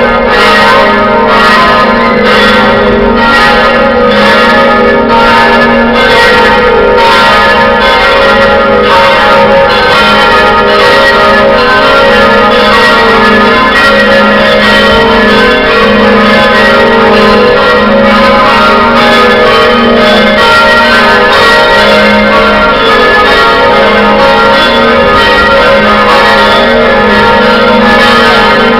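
Church bells of the Cathedral of St. Domnius bell tower ringing a loud, continuous peal. Strokes fall about twice a second and overlap as the bells ring on.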